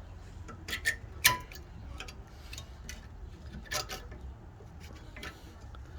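Sharp metallic clicks and taps as new rear brake pads are slid into the caliper bracket. About five clicks, the loudest a little over a second in with a brief ring.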